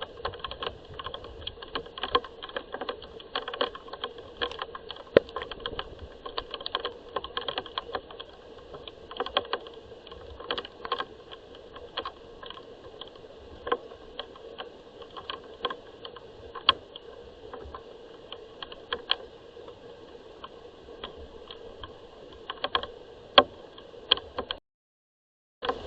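Rain dripping and pattering onto a hard surface close by: a dense, irregular run of sharp taps and ticks. The sound drops out for about a second near the end.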